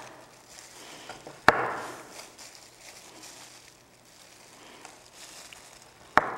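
Knife chopping through a raw carrot onto a cutting board: two sharp chops, about a second and a half in and near the end, the first followed by a brief crunch.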